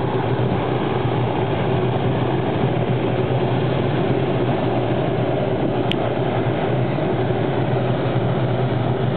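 Hughes 500 (MD 500) light helicopter running on the ground, its turboshaft engine and spinning rotors making a steady, unbroken drone.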